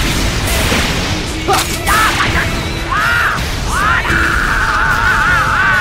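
An explosion sound effect bursts at the start, laid over a loud music track. A high, wavering melody line comes in about two seconds in and carries on to the end.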